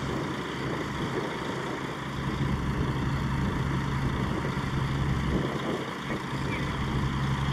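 Heavy diesel vehicle engine running steadily with a low, even hum, a little louder from about two seconds in.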